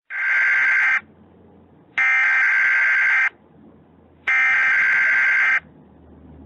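Emergency Alert System SAME header: three bursts of digital data tones, each about a second long with roughly a second's gap between them. This is the coded header that opens an EAS alert.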